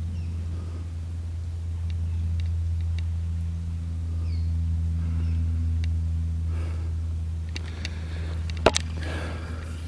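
Quiet bush ambience with a steady low hum and a few faint bird chirps. Near the end come a rustle and two sharp clicks in quick succession.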